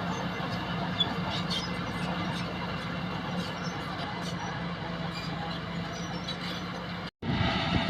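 Old bulldozer's engine running steadily with a low hum and scattered light clicks. Just after seven seconds the sound drops out for a moment and comes back louder.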